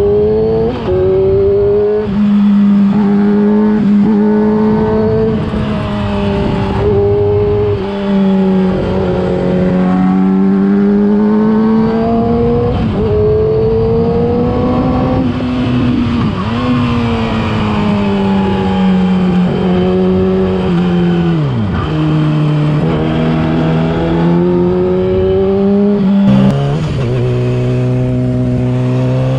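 Yamaha R6 inline-four engine through a LeoVince aftermarket exhaust under way, its revs climbing and falling with gear changes. The pitch dips sharply about two-thirds of the way in and steps down near the end.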